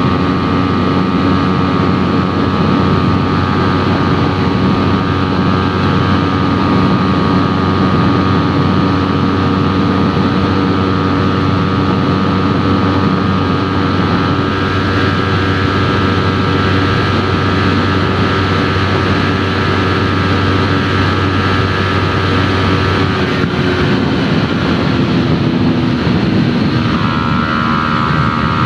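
Yamaha R3 parallel-twin motorcycle engine running through an aftermarket Arashi exhaust while riding, heard on board. It holds a steady note for most of the time, then the note changes about 23 seconds in and settles on a new steady pitch near the end.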